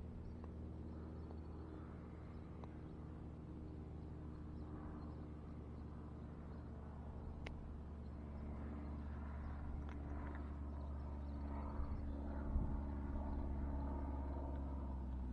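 A steady low mechanical hum, like a distant engine, runs throughout. A few faint clicks, then light handling knocks near the end as the spinning rod is picked up.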